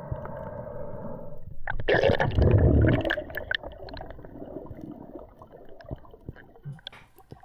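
Water heard through an underwater camera: a loud gurgling rush of water and bubbles about two seconds in, then faint crackling and clicks. Before it, a steady hum of several tones cuts off suddenly.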